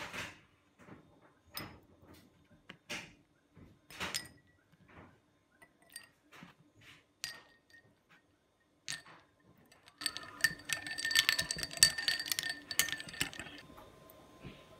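A metal spoon clinking against a glass bowl in single clinks about once a second. About ten seconds in, the clinks turn rapid and ringing for a few seconds, as a spoon is stirred briskly among ice cubes in a glass.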